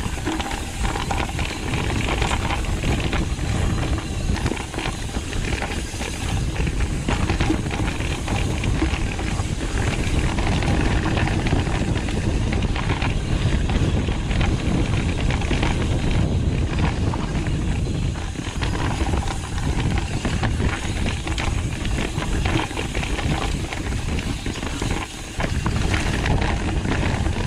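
Pivot Firebird 29 mountain bike ridden fast down a dirt trail, heard from a chest-mounted camera: a steady rush of wind over the microphone and tyres rolling on dirt, broken by constant small knocks and rattles as the bike and the loose chest mount jolt over bumps.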